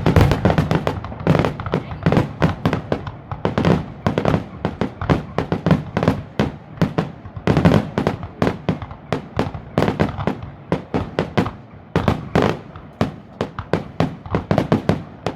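A fireworks grand finale: a dense, rapid barrage of bangs and crackles, several blasts a second with no pause, as many fireworks go off at once.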